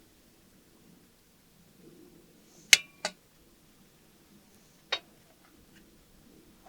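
Kitchenware clinking: three sharp clinks, the first and loudest ringing briefly, then a few faint ticks.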